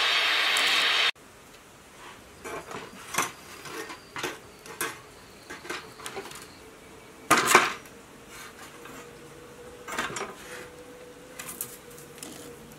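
Gas welding torch flame hissing steadily, stopping abruptly about a second in. Then scattered light metal clicks, clinks and scrapes as a hand tool and thin rods work against the steel blade, with a louder scrape about seven seconds in.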